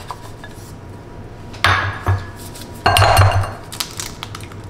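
An egg knocked against the rim of a glass mixing bowl to crack it: a few sharp knocks and clinks of shell on glass, about two seconds in and again in a short cluster around three seconds in.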